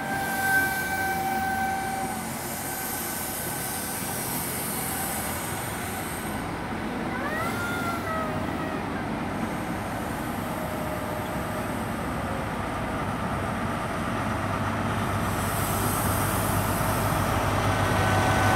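InterCity 125 high-speed train pulling into a station platform: diesel power car running with rail and wheel noise, brief high squealing tones near the start and about halfway through. The engine's deep drone grows louder over the last few seconds as the power car comes closer.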